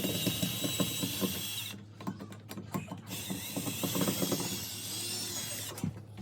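Power drill running in two bursts, driving screws into a wall, with a fast ratcheting clatter. It stops for about a second after the first burst, then runs again for nearly three seconds.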